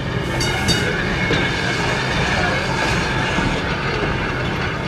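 Electric streetcar running along its track, heard from inside the car: a steady rumble of wheels on rails with a continuous high whine and a few short clacks about half a second in.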